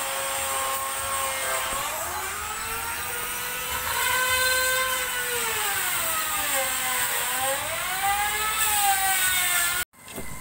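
Small electric motor of a handheld power tool running under load, its whine dipping and rising in pitch over the seconds, with a hiss over it; it cuts off abruptly near the end.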